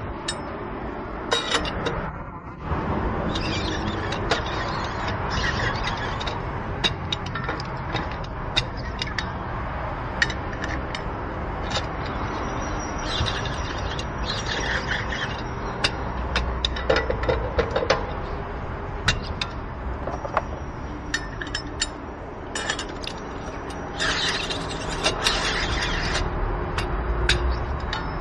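Steel four-way cross lug wrench turning on a car wheel's lug nuts as they are spun on and tightened. Many sharp metallic clicks and clinks come at irregular intervals over steady background noise.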